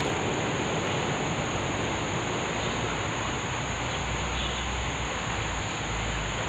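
Steady high-pitched insect drone over a constant noisy outdoor background, with a low rumble building in the second half.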